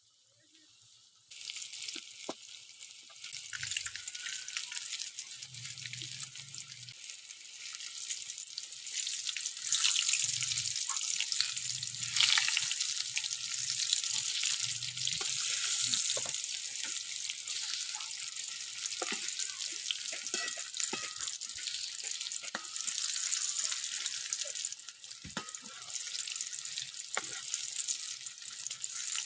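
Chicken pieces frying in hot oil: a steady sizzle that starts suddenly about a second in, with occasional small clicks and pops.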